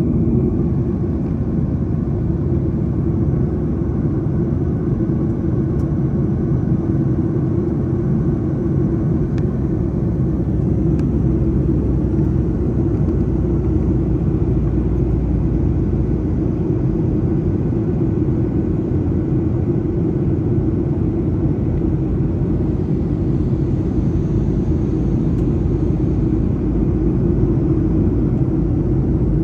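Cabin noise of a jet airliner in flight: a steady, even low rumble of engines and rushing air.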